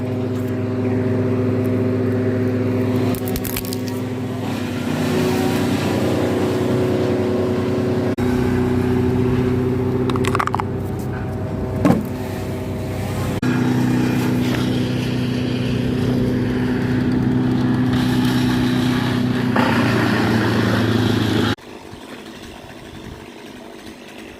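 Small engine running at a steady speed, its pitch shifting slightly a couple of times, with a sharp knock about halfway through. It cuts off suddenly well before the end, leaving quieter background.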